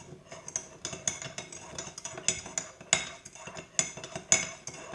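Spoon stirring lemon pieces, sugar and warm water in a mug, clinking against its sides again and again at an uneven pace.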